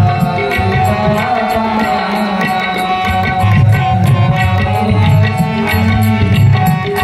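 Indian devotional music with tabla: drum strokes keeping a steady rhythm, with deep bass strokes, under long held melodic tones.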